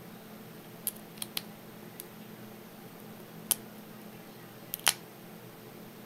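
Small sharp metallic clicks, about seven at irregular intervals, the loudest around three and a half and five seconds in: a short hook pick and tension wrench working the spool pins of a Papaiz euro cylinder lock, pins clicking as they set.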